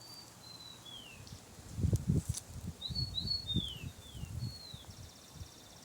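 A songbird whistling clear, downward-slurred notes: one early, then a quick run of several from about three seconds in, with a short buzzy trill near the end. Low thuds, loudest about two seconds in, come along with the calls.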